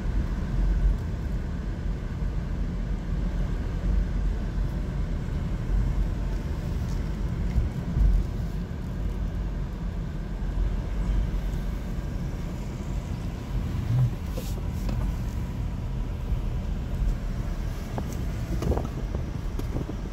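Car cabin noise while driving: a steady low rumble of engine and tyres heard from inside the car.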